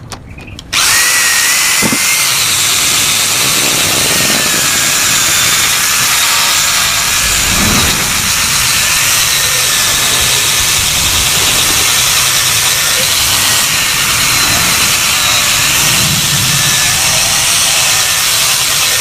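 Angle grinder switched on about a second in and grinding the steel of a Yamaha RX-King exhaust without a break, a loud hiss with a thin high whine that wavers slightly in pitch.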